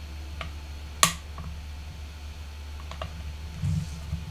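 A few light clicks and taps from a hot glue gun being worked against a paper craft, with one sharper click about a second in. A steady low hum runs underneath.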